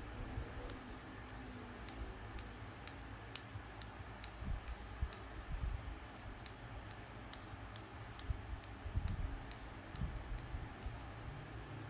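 Small crisp scratching strokes on plastic model-kit parts, evenly paced at about two a second, over a low steady handling rumble.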